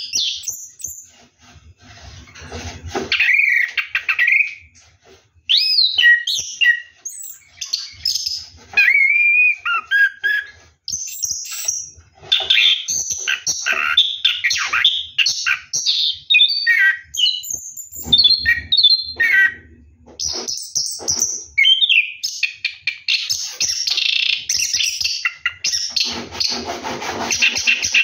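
Orange-headed thrush singing a long, continuous run of varied phrases, with sliding whistles and dense trills: the rolling song that keepers call 'ngeroll'. Near the end the song becomes rougher and noisier.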